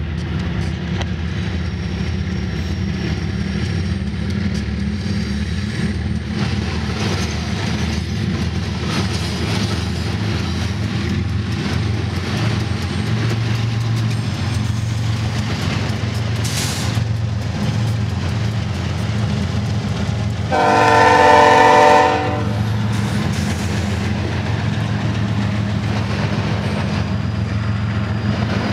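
Freight train passing: BNSF diesel locomotives followed by double-stack intermodal well cars, with a steady low rumble and the clatter of wheels over the rails. About two-thirds of the way through, a locomotive air horn sounds once for about a second and a half, louder than the train.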